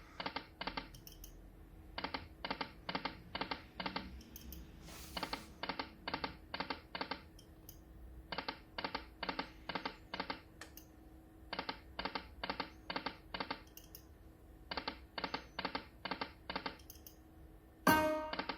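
Lightning Cash slot machine spinning over and over, its reels stopping one after another with a sharp click each. That makes runs of about five clicks, with a new spin every three seconds or so. Near the end a brief louder chime sounds.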